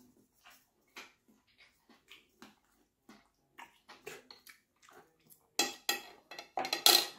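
Cutlery clinking and tapping on a plate in a series of short, irregular clicks, loudest about two thirds of the way through and again near the end.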